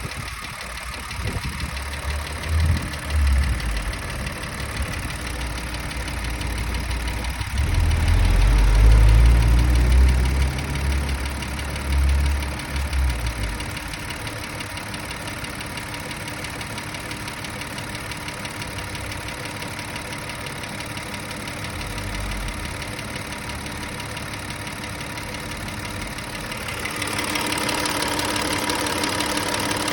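Audi A6 C7's 2.8-litre CHVA V6 petrol engine running at idle with a knock, the fault the owner is recording. A heavier low rumble comes about eight to thirteen seconds in, and the engine sound grows louder and brighter near the end.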